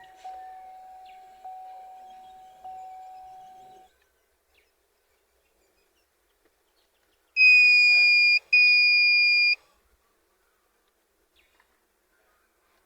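GMC Terrain's warning chime repeating about once every 1.2 s, each a single tone that fades, stopping about four seconds in. After a few seconds of quiet come two loud, long, high-pitched beeps, one right after the other.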